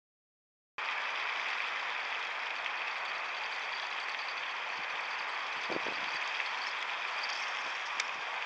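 Steady outdoor background hiss that starts abruptly about a second in after silence, with a sharp click near the end.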